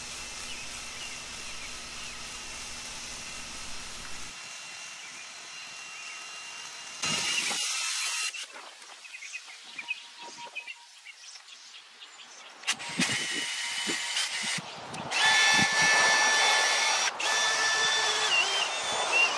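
Cordless drill spinning a chimney brush on rods inside a stainless steel stovepipe chimney, run in short bursts: briefly about a third of the way in, then for most of the last third with a steady whine.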